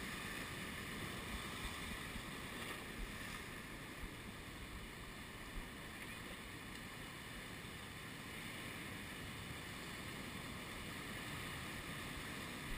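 A steady rush of ocean surf breaking and washing over rocks, with a few light knocks here and there.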